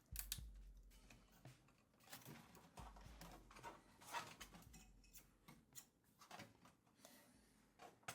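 Near silence, broken by a few faint light clicks and taps.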